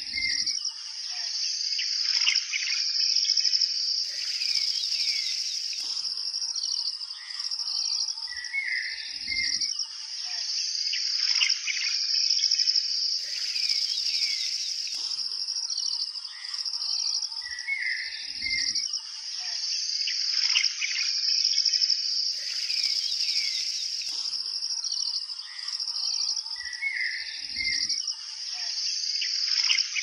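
Nature-sound ambience of birds chirping over a steady high-pitched insect drone. It is a loop that repeats about every nine seconds.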